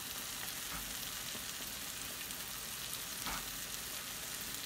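Eggs, tomatoes and mushrooms sizzling steadily in oil in a frying pan, with one brief knock about three seconds in.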